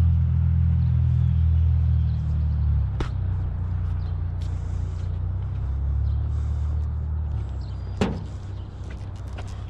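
Vehicle engine idling with a steady low drone, with two sharp knocks of handled scrap, one about three seconds in and a louder one near the end.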